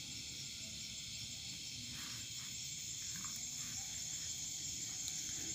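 Steady high-pitched chirring of night insects, such as crickets, over a low background rumble.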